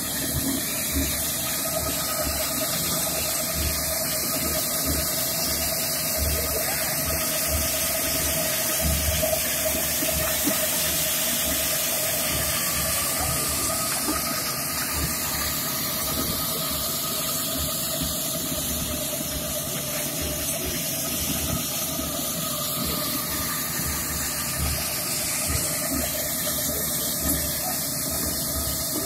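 Electric concrete power trowel with a float disc running on a vacuum-dewatered concrete slab: a steady hiss over a steady motor hum.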